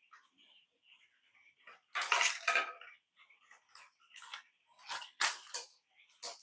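Clattering and clicking of hard plastic toy parts and a screwdriver being handled as the toy is opened up: a loud rattle about two seconds in, then a series of sharp clicks.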